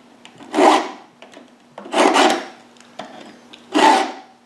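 Stihl file guide with two round files and a flat file rasping along a chainsaw chain, sharpening the cutting tooth and lowering the depth gauge in the same stroke. Three filing strokes, about a second and a half apart.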